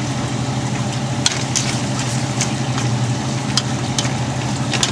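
A spatula stirring vegetables and chicken in a metal pot on the stove, with a light sizzle and about six sharp knocks and scrapes of the spatula against the pot, over a steady low hum.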